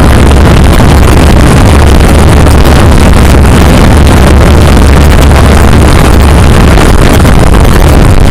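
Quadcopter drone's motors and propellers buzzing steadily in flight, recorded by its own on-board camera, loud and distorted with wind noise on the microphone.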